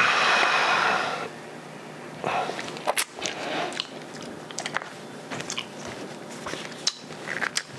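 Vaping: a loud breathy rush of air, about a second long, as a hit is taken from an e-cigarette. It is followed by softer breaths and small mouth clicks and lip smacks while the flavour is tasted.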